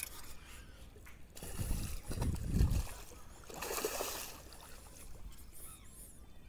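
A hooked toman (giant snakehead) thrashing at the surface: heavy low sloshing about a second and a half in, then a short burst of splashing about two seconds later.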